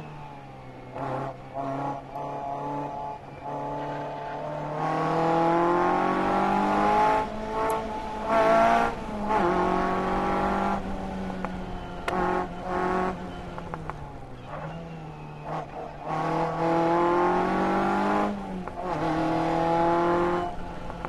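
Car engine heard onboard at speed, the revs climbing and then dropping back several times as the car accelerates and changes gear or lifts off.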